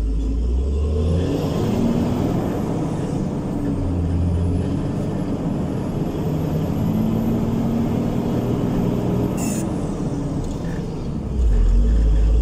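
Ural NEXT truck crane driving over a rutted dirt road, heard from inside the cab: a steady diesel engine drone with a heavy low rumble and cab rattle. A single sharp knock comes about nine and a half seconds in, and the low rumble grows louder near the end.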